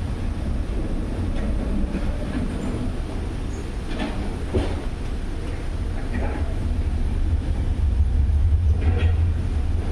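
Front-loading washing machine running with a steady low rumble that grows louder in the last few seconds. A few brief scraping sounds come through, the rubbing noise of the rubber door gasket.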